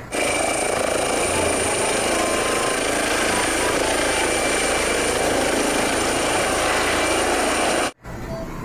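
Helicopter sound: a dense, steady noise with a thin high whine. It starts sharply and cuts off abruptly about eight seconds in.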